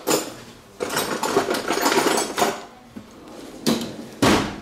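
Hand tools and metal engine parts being handled: a run of rapid clicking and clattering about a second in, then two heavier knocks near the end.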